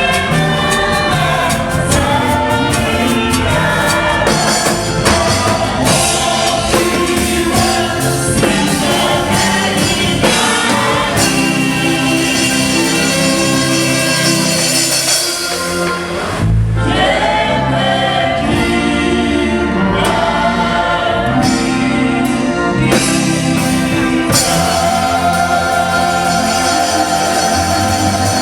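Gospel music sung by a church choir over band accompaniment with a steady beat. The music thins briefly a little past halfway.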